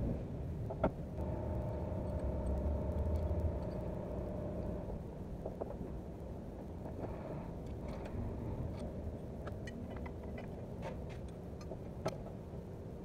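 Hand tools at work on a truck engine during a water pump job: a sharp knock about a second in, a run of small clicks in the second half, and another knock near the end, over a steady low rumble.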